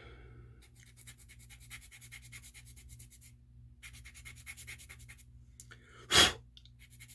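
A blade shaving a small plastic model part in quick scraping strokes, about ten a second, in two runs with a short pause between. About six seconds in comes one loud, short puff of breath.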